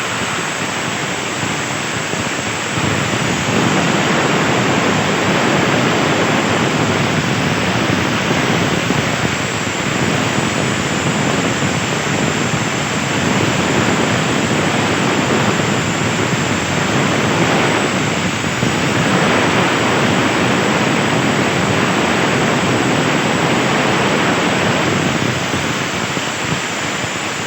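CNC plasma torch arc cutting 1.5 mm steel sheet: a loud, steady hissing rush of the cutting arc and its gas jet, cutting off suddenly at the very end.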